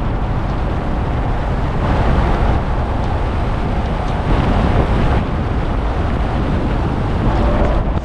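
Truck driving on the road, a loud steady rumble of road and engine noise with wind buffeting the microphone.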